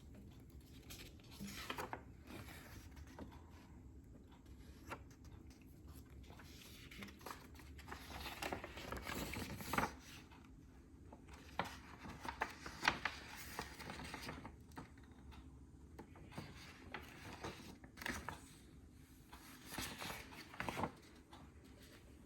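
Packaging being handled: faint, intermittent rustling and crinkling with small clicks and taps, a busier stretch of it about nine to fourteen seconds in.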